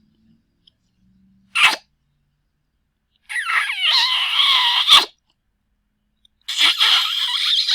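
Loud, exaggerated kissing sounds made with the lips: a short smack, then two long, drawn-out squeaky smooches whose pitch slides up and down. The first long smooch ends in a sharp smack.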